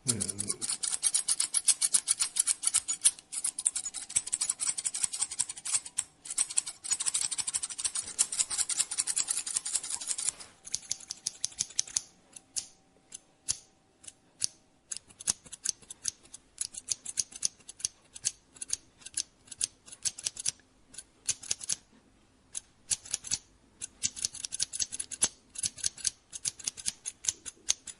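Barber's scissors snipping through hair in quick runs of snips. The snipping is dense for the first ten seconds or so, sparser through the middle, and picks up again near the end.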